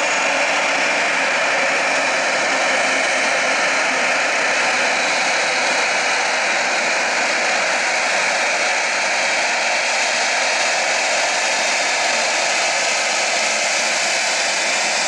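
Large airliner's turbofan engines running steadily on the ground, a continuous jet whine and rush with no change in level.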